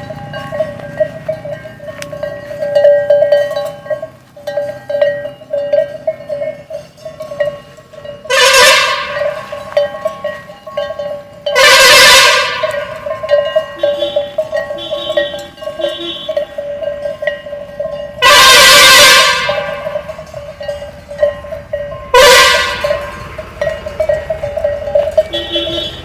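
A cow's neck bell clanking over and over as the animal moves. Four loud bursts of passing road traffic cut across it, the two longest lasting over a second each.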